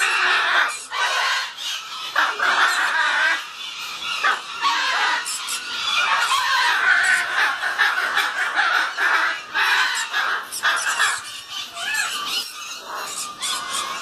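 Goffin's cockatoos screeching: harsh, overlapping squawks and squeals, with no break.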